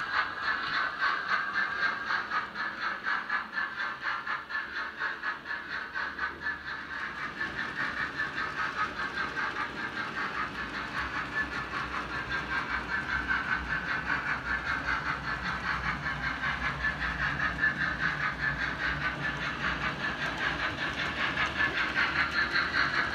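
Model trains running on a model railway layout: a steady running noise with a fast, even pulse.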